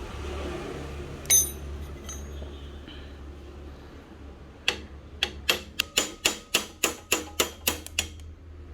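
A dozen or so sharp metallic hammer blows on a bicycle crank, about four a second, knocking out the cotter pin that holds the pedal crank to the bottom-bracket axle. A single sharp clank of metal comes about a second in.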